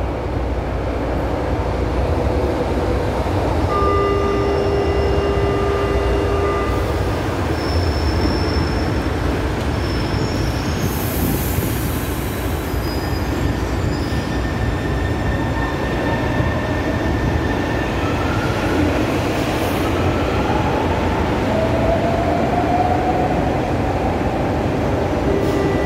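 Metro train in an underground station: a steady low rumble with a few held tones early on, a burst of hiss about eleven seconds in, then the electric traction motors whining upward in pitch as it accelerates away, with wheel squeal.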